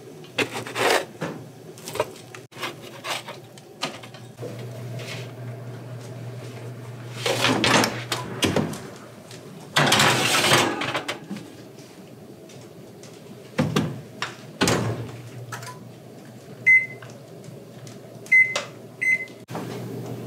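Metal spatula clicking and scraping against a sheet pan as the cakes are flipped, then the baking sheet sliding into the oven and a couple of knocks as the oven is shut. Near the end, three short beeps from the oven's control panel.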